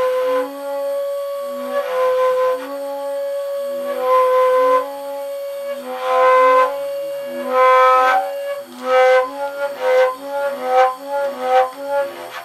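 Long flutes playing an alternating pattern of low and high held notes. The notes turn quicker and shorter about two-thirds of the way through.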